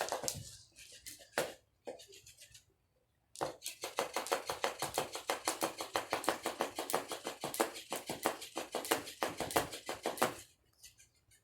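Battery-operated flopping fish toy slapping against the floor in a fast, even run of taps, about seven a second, starting about three seconds in and stopping shortly before the end. A few scattered knocks come before it.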